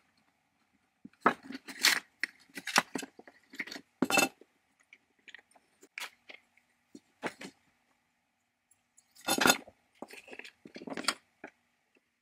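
Metal parts of the Drillgine's recoil starter clinking and rattling as they are taken apart by hand: clusters of short clicks and clatters, loudest about a second in and again near the end.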